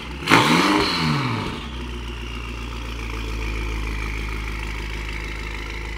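BMW M5 Competition's twin-turbo V8, breathing through a full M Performance titanium exhaust and aftermarket downpipes, blipped once: a sharp bark, then the revs climb and fall back. It then settles into a steady idle.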